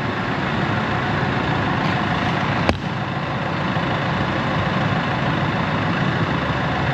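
Heavy-equipment diesel engine running steadily, with a single sharp click nearly three seconds in.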